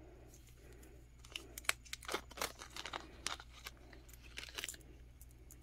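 Small clear plastic bead bag crinkling and crackling as fingers handle and open it, a run of irregular crackles starting about a second in and stopping near the end.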